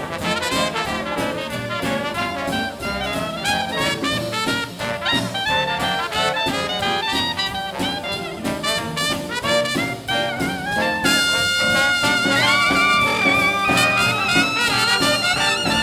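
Traditional jazz band playing an up-tempo number, led by trumpet and trombone over a steady beat. About eleven seconds in the horns move to long held notes with a wide vibrato, and the music gets a little louder.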